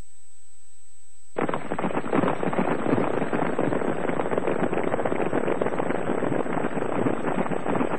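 Battle noise of a cavalry charge: massed hoofbeats of galloping horses in a dense clatter that cuts in abruptly about a second and a half in.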